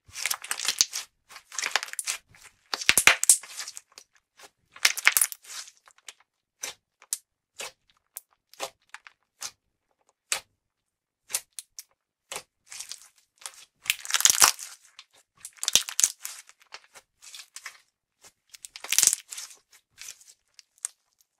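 Clear glittery slime being pressed and squished by fingers and palms, giving repeated bursts of sticky crackling and popping. Between the bursts, and through a quieter stretch in the middle, there are single pops.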